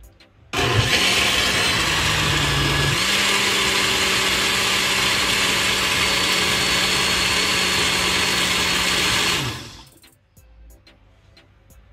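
Countertop electric blender running on a thick, dark fruit mixture for about nine seconds. It starts about half a second in, its motor note rises a step about three seconds in, and it winds down and stops near the end.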